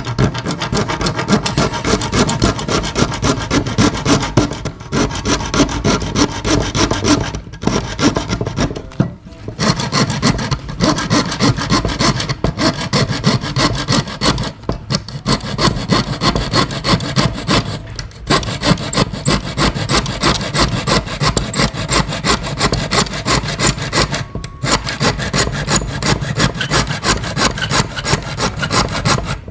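A hand file rasping back and forth on the battery adapter's housing, shaving it down so that it fits the 40V impact driver: quick, steady scraping strokes, broken by short pauses three times.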